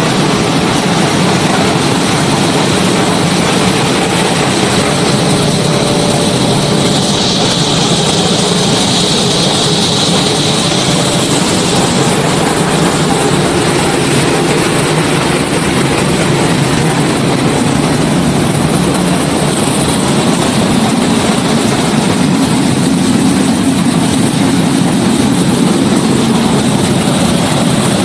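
Corn flakes production line machinery running: a loud, steady mechanical noise with a hiss on top, whose tone shifts slightly a couple of times.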